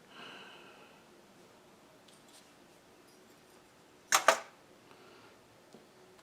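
A sharp double click, two strokes in quick succession, about four seconds in, against low room noise.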